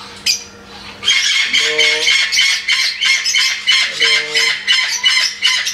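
Parrots squawking: after a quieter first second, a rapid run of short, harsh, high-pitched squawks, several a second.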